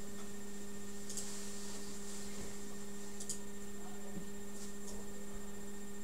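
A steady hum made of a low tone with a fainter tone above it, with a few faint ticks.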